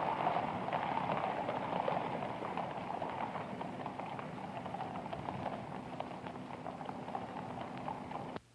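Horses walking: many irregular hoof clops over a steady rustling background, slowly growing quieter and then cutting off abruptly near the end.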